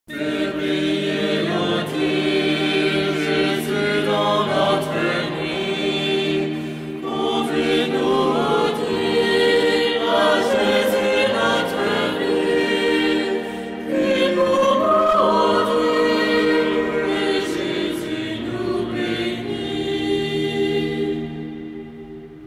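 A choir singing a hymn in long held notes; it fades out near the end.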